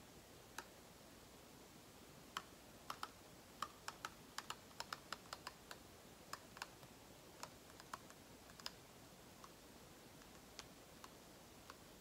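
Near silence with faint, sharp little clicks during a slow pour of acrylic paint from a cup onto a tilted canvas. They come in a quick irregular cluster about two to six seconds in, and otherwise only now and then.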